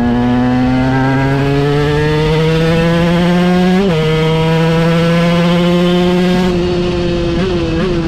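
KTM EXC 125 two-stroke single-cylinder engine, on short 14/50 gearing, pulling hard under acceleration: its pitch climbs steadily, drops suddenly about four seconds in as it shifts up, and climbs again. Near the end the throttle eases off and the revs waver.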